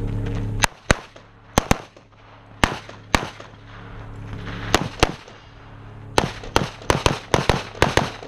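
A string of pistol shots from a USPSA Limited-division handgun fired during a stage run: about fifteen sharp cracks, mostly in quick pairs, with short pauses between groups as the shooter moves to new targets.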